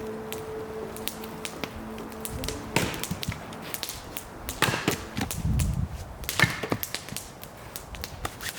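Hatchet chopping wood: a few heavier strikes about every one and a half to two seconds, with lighter knocks and clicks between them.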